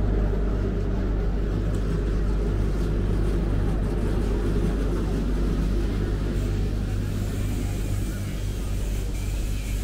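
A steady low engine rumble and hum.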